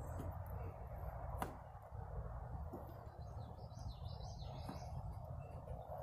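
Low steady outdoor rumble, with a sharp click about a second and a half in and a fainter one a little later, from a GFCI outlet being handled and pressed into its shallow wall box on an RV. Faint bird chirps come in midway.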